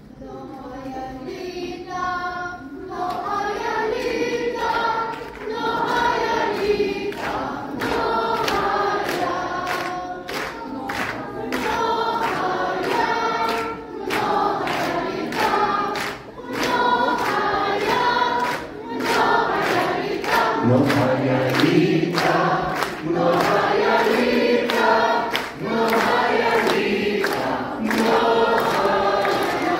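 A group of voices singing a song together, starting about a second in, over a sharp steady beat about twice a second.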